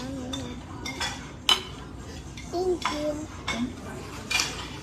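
Metal cutlery clinking against plates and bowls at a dining table: a handful of separate sharp clinks, about four spread through the stretch.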